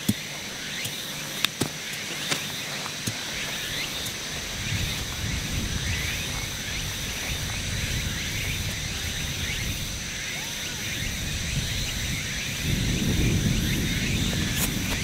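Open-air ambience: a steady high insect drone with a few faint chirps and small clicks, and two spells of low wind rumble on the microphone, one about a third of the way in and one near the end.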